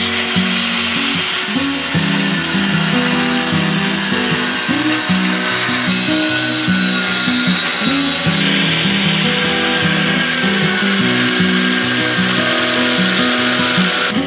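Angle grinder with a thin cut-off disc cutting into a rusty steel bar: a steady high whine and rasp of the disc grinding through metal. Background music plays underneath.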